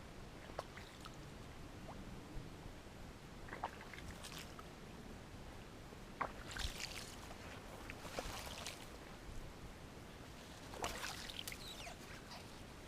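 Faint footsteps of someone wading along a flooded, overgrown trail: scattered soft splashes and brush rustles coming in a few short bursts, with small clicks in between.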